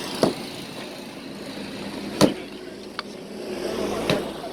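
Road noise with a vehicle engine running, broken by four short sharp knocks, the loudest a little past two seconds in.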